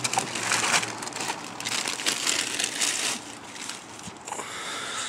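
Plastic grocery bags rustling and crinkling as groceries are handled and loaded into a car. The sound comes in a quick run of irregular bursts over the first three seconds, then eases off.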